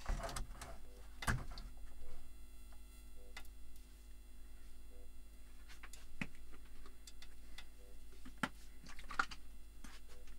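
Scattered small clicks and ticks at irregular times over a low steady hum, with a few sharper ones about a second in and near the end.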